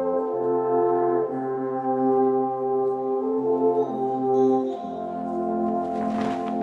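An ensemble of alphorns playing together in long held chords, moving to a new chord every second or two. A brief burst of noise rises over the chord near the end.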